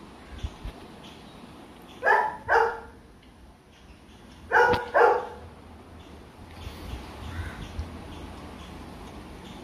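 A dog barking four times, in two quick pairs about two and a half seconds apart.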